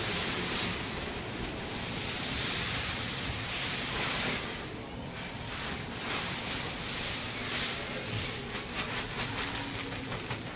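Pearl millet pouring from a sack onto a heap of grain: a rushing hiss that swells and eases in waves. Near the end it breaks into a patter of separate grains as the sack is lifted and shaken empty.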